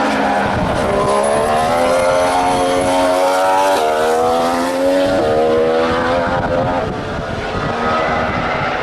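A 2014 Formula One car's 1.6-litre turbocharged V6 accelerating past, its note rising through the revs and dropping sharply at two upshifts before fading slightly.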